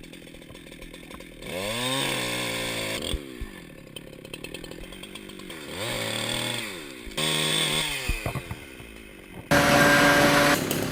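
Chainsaw engine idling and being revved up and down about three times, each rev rising and falling in pitch, then a sudden loud steady stretch near the end.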